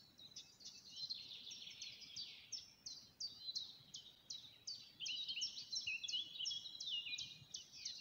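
Several songbirds singing at once: many short, high chirps and down-slurred whistles overlapping, growing denser about halfway through.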